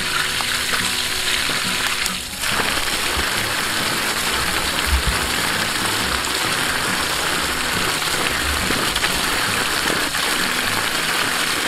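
Water gushing steadily from the open end of a PVC outlet pipe and splashing onto dry grass and ground, a strong flow drawn up from a deep well by a drum siphon pump.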